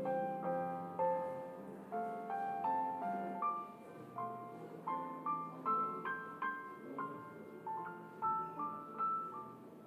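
Background piano music: a melody of single struck notes over lower held bass notes.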